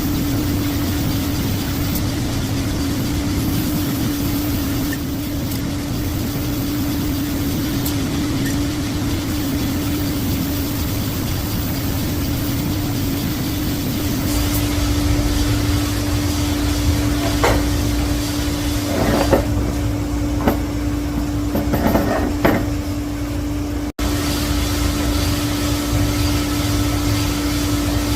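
Shop machine motor running with a steady hum and low rumble, with a few short metallic clicks and knocks about two-thirds of the way through.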